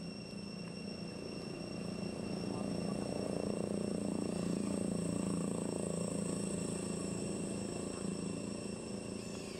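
Insects trilling steadily at several fixed high pitches, over a low hum that swells to its loudest midway and then eases off.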